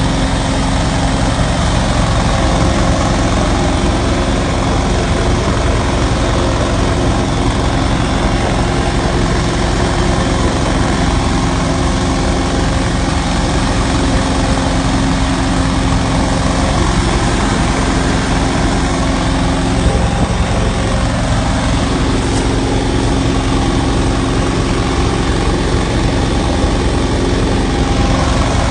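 Carpet-cleaning truckmount running steadily: its 20-horsepower Kohler engine driving a 406 tri-flow vacuum blower, an even, unbroken noise with a constant hum.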